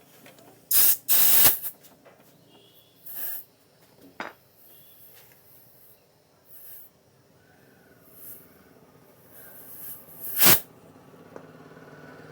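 Several short hissing blasts of compressed air from an air-line inflator, filling a tubeless motorcycle tyre; the loudest come about a second in and near the end. The tyre is leaking air at the bead, where it is not yet sealing against the rim.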